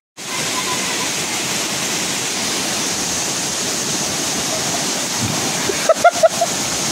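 Steady rush of a waterfall pouring into a pool. About six seconds in, a person jumps in with a splash, with a few brief shouts.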